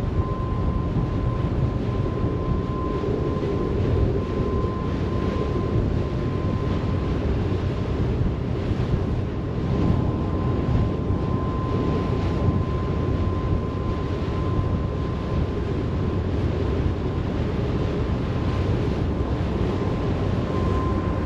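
Steady low rumble of a car ferry under way, with wind buffeting the microphone and a thin steady whine running through it.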